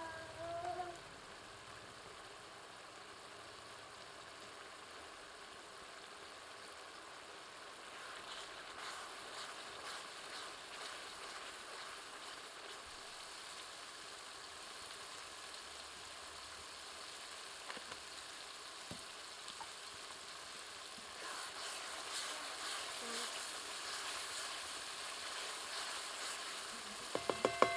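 Spiced liquid sizzling and bubbling in a steel kadai over a wood fire, the crackle growing stronger through the second half as it reduces. Near the end comes a quick run of knocks with a short metallic ring as the pan is struck while stirring.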